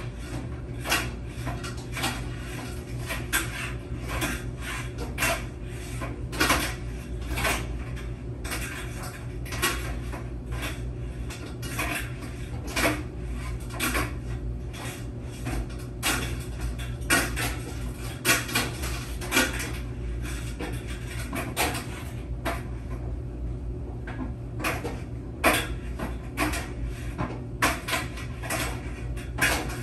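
Laundry machine running: a steady low hum under irregular clicks and knocks, about one or two a second.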